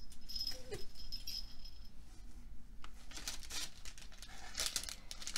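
A small jingle bell on a fur tail tinkling as the tail is handled, then tissue paper rustling and crinkling from about three seconds in.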